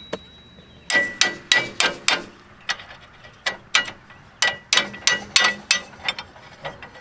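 Irregular metal clanks and clicks, some ringing briefly, as a replacement tractor seat's steel bracket is shifted and knocked against the seat mount of a Ford 3000 tractor.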